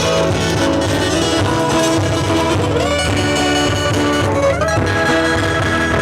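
Live music led by guitar, playing steadily, with a melody line that slides up in pitch twice, about three and four and a half seconds in.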